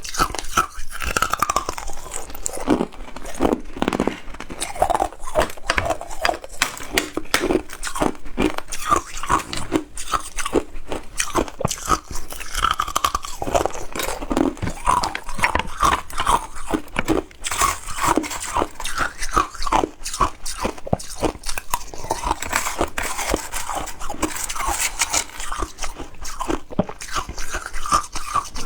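Ice being bitten and crunched between the teeth, a dense run of sharp, crisp crunches, close to the microphone.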